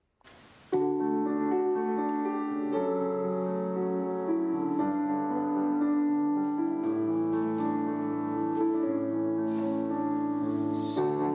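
Keyboard instrument playing slow, sustained chords that change about every two seconds, starting under a second in after a brief hiss: the instrumental introduction to a hymn.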